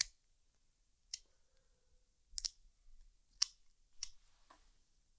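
Hand-held dog nail clippers snipping through a dog's toenails: a series of sharp snips, about one a second.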